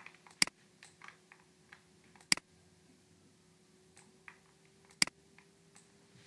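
Sharp clicks of computer input, three loud ones about two to three seconds apart with fainter ticks between them, over a faint steady hum.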